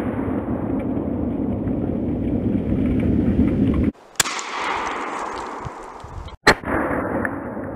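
Two sharp .410 double-barrel shotgun blasts about two seconds apart, the first about four seconds in, loaded with 000 buckshot and striking a spaghetti squash. A steady rushing background noise runs under and between them.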